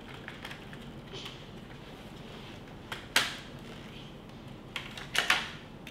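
Hard plastic toy blaster parts being handled, with small clicks and knocks and a short sharp scrape about three seconds in, then a few more near the end.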